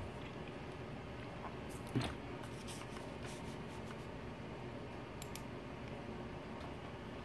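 Quiet room tone with a soft knock about two seconds in and a few faint, scattered clicks.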